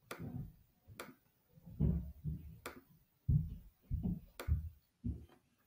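Computer mouse clicks, about five of them spaced roughly a second apart, with soft low thumps in between.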